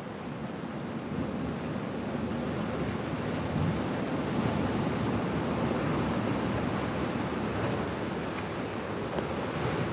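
Sea surf washing against a coastal rock platform, with wind rushing over the microphone; a steady noise that builds slightly over the first couple of seconds.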